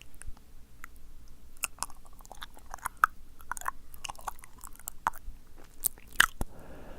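Close-miked wet mouth sounds for ASMR: lip smacks and tongue clicks at irregular intervals, followed near the end by a short soft puff of breath.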